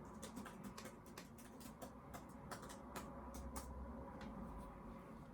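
Quick, irregular clicks of keys on a computer keyboard being typed on, with a faint low hum underneath.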